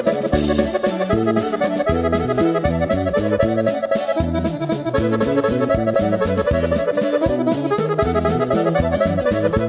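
Norteño band music, instrumental: an accordion plays the melody over a stepping bass line and a steady drum beat, with no singing.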